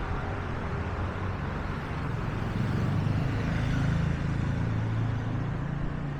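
Street traffic: motor vehicle engines running and passing close by, with a low hum that swells for a few seconds in the middle.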